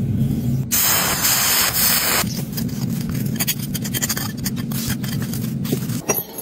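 A loud hiss lasting about a second and a half, then a run of scraping and grating as a metal rod digs freshly cast metal pieces out of a sand mould. A low steady hum runs underneath.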